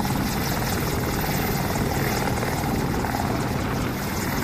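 AH-64 Apache attack helicopter in flight: the steady, rapidly pulsing noise of its rotor and twin turboshaft engines, heard from inside the cockpit.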